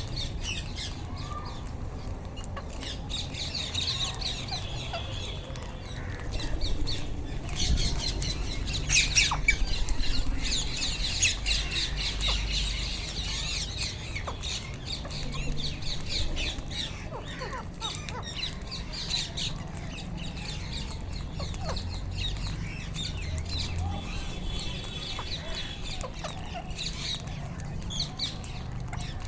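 A flock of wild rose-ringed parakeets (Indian ringnecks) calling, with many shrill, overlapping squawks that are busiest and loudest about eight to twelve seconds in. A low steady rumble runs underneath.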